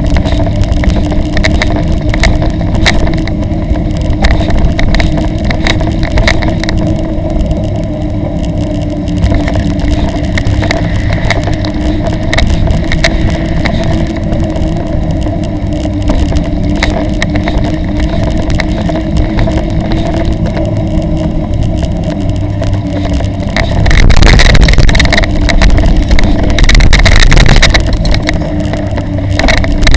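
Steady rumble and rattle of a bicycle towing a child trailer along a street, with wind buffeting the microphone and a low steady hum under it. The noise grows louder and rougher for a few seconds near the end.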